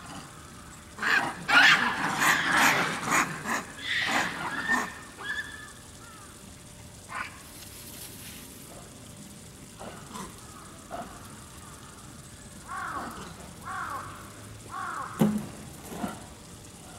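A burst of loud, short animal calls about a second in, then three falling calls near the end.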